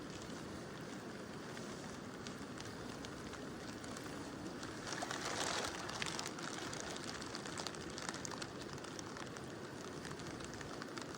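Mountain river running steadily under gentle rain, with many small raindrop ticks over the rush of the water. A brief louder swell about five seconds in.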